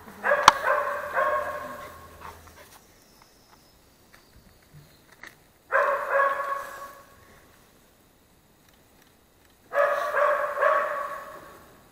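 A dog barking in three bouts of several short barks each, a few seconds apart, with a sharp click about half a second in.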